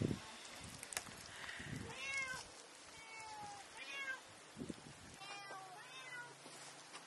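A cat meowing: several short rising-and-falling mews, roughly one a second, with a sharp click about a second in.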